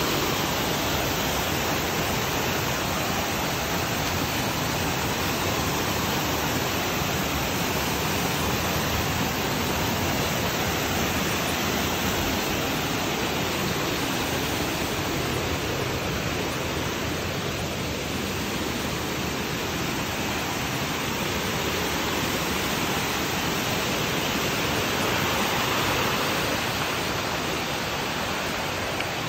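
Small waterfall cascading over rocks into a stony stream pool: a steady rush of falling water, fading a little near the end.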